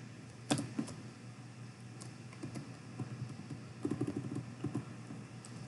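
A few scattered keystrokes on a computer keyboard, with a short run of quick keystrokes about four seconds in, over a faint steady low hum.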